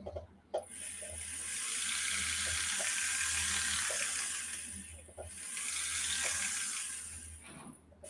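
Flex-shaft rotary tool with a blue abrasive wheel running against a small metal fitting: a steady high whine over a grinding hiss, in two runs with a short break about five seconds in. The wheel is taking most of the patina off the metal.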